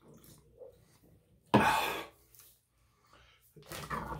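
A man coughing once, sharply, about a second and a half in, after swallowing from a drink can, his mouth still burning from spicy chips.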